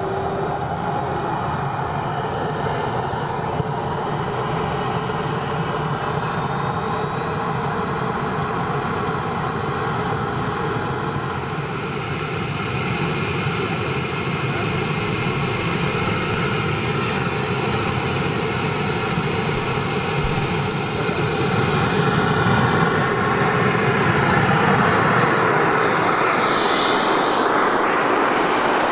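RC model jet's small turbine engine running on the ground, a steady roar with a thin whine that climbs slowly in pitch over the first dozen seconds as it spools up. The whine then holds level, climbs again and the engine gets louder near the end.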